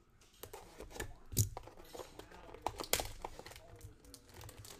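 Cardboard hanger box of Optic football cards being slit with a knife and torn open by hand, with crinkling, crackling and tearing noises. The two sharpest cracks come about one and a half and three seconds in.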